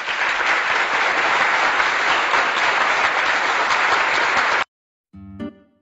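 Crowd applause, dense and even, cut off abruptly about four and a half seconds in. After a moment's silence, music on a plucked string instrument starts near the end.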